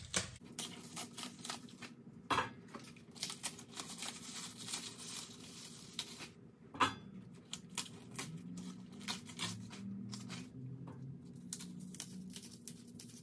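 Swiss chard leaves being torn and stripped off their red stems by hand: a run of crisp tearing and crackling, with a sharper click or knock about two seconds in and again near seven seconds.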